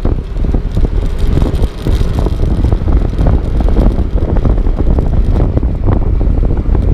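Wind buffeting the microphone on a moving motor scooter, a loud, gusty low rumble over the scooter's running engine and road noise.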